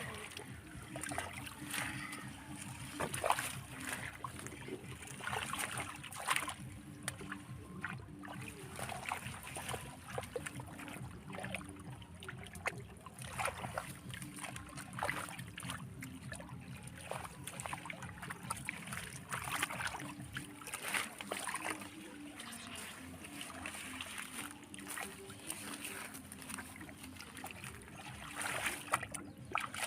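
River water splashing and sloshing in short, irregular bursts as people wade and grab for fish by hand.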